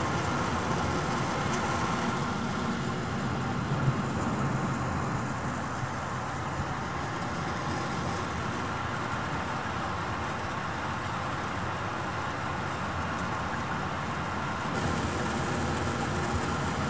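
Jet airliner cabin noise in flight: the engines and rushing air make a steady hum inside the passenger cabin, with one small tap about four seconds in.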